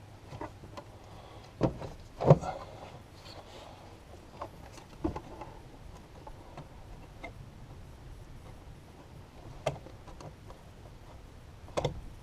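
Scattered knocks and clicks of parts and tools being handled while working on the truck's engine, the loudest a pair about two seconds in, with a low steady hum beneath.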